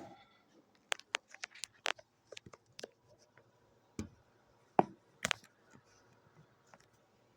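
Scattered light clicks and taps, a dozen or so in quick succession, then three louder knocks, like objects being handled and set down.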